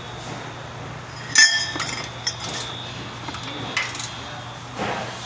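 Metal tools and steel suspension parts clinking during work on a car's front suspension: one loud ringing clank about a second and a half in, then a few lighter clicks.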